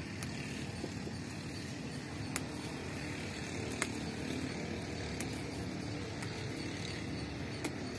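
Leafy greens being hand-picked from a garden pot: a few sharp clicks of stems snapping, over a steady low background hum.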